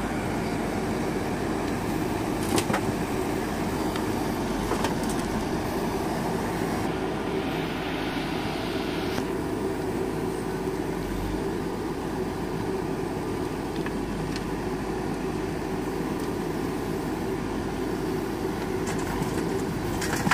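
Diesel engines of a backhoe loader and a Mahindra 475 DI farm tractor running steadily, with a few knocks as the loader works soil into the tractor's trolley.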